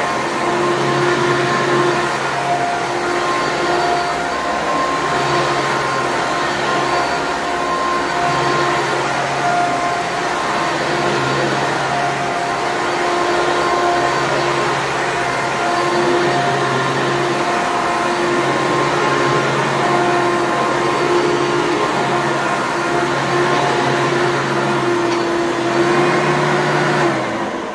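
1994 Hoover Elite Supreme bagged vacuum cleaner running steadily, its motor hum wavering slightly in pitch. It is switched off near the end and the motor winds down.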